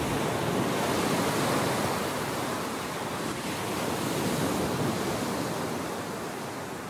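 Ocean surf washing onto a rocky shore: a steady rush of breaking waves that swells and eases, fading out near the end.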